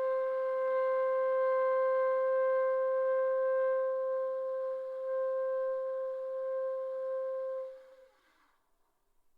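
Saxophone played by a beginner, holding one long steady note that stops about eight seconds in.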